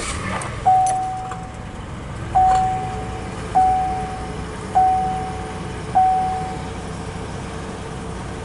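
A Chevy Uplander's V6 has just caught and is idling steadily on a freshly installed battery. Over it, the dashboard warning chime dings five times, about a second apart.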